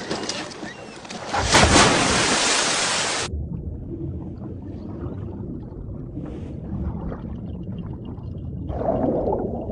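Scuba divers dropping backward off a boat into the sea: a big splash about a second and a half in. Then the sound turns suddenly muffled and low, an underwater rumble with faint bubbling.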